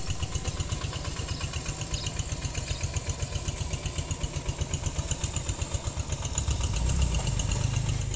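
An engine idling steadily, with an even, rapid pulse.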